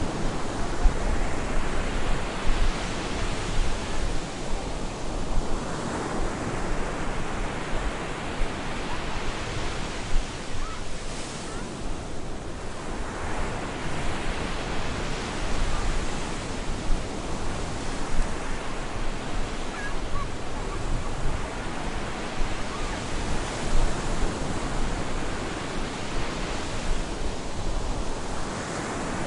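Stormy sea surf on a beach: a continuous rush of breaking waves that swells and brightens every several seconds as each wave comes in.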